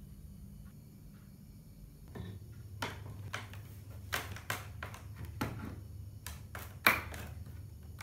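Wooden shipping crate being pried open with a steel pry bar: a string of sharp knocks and cracks from the bar and the slats, starting a few seconds in, with the loudest crack near the end, over a low hum.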